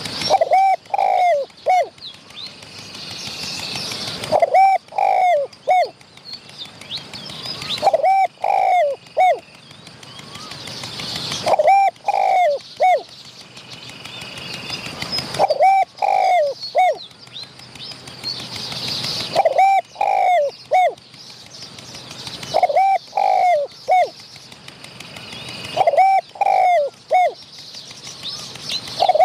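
Spotted doves cooing: a short phrase of three or four coo notes, repeated about every three and a half to four seconds, with quicker higher notes alongside each phrase. Between phrases a hiss swells steadily louder.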